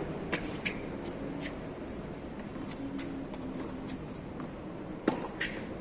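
A tennis ball struck hard by a racket once, about five seconds in, over a steady background hiss with scattered light clicks and taps.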